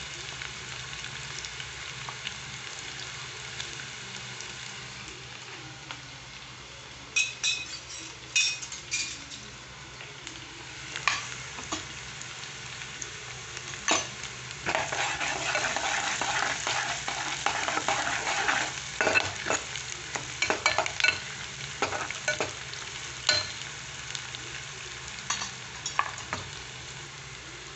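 Chopped onion, green chillies and crushed garlic and cumin sizzling in hot oil in a metal pan, with a steady frying hiss. Stirring clicks and scrapes against the pan come now and then, busiest in the middle.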